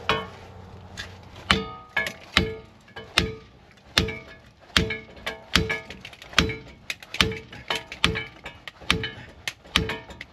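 Steady hammer blows on metal, roughly one every 0.8 seconds, each with a brief ringing tone, with lighter taps in between: a pressed-in front wheel bearing being driven and worked loose.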